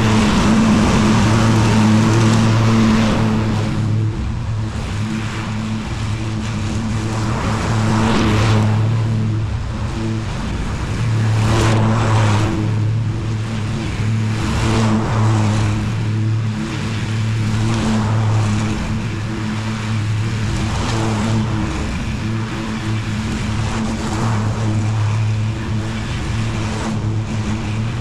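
Lawn mower engine running steadily under load, with a whooshing noise of cutting that swells and fades every three to four seconds.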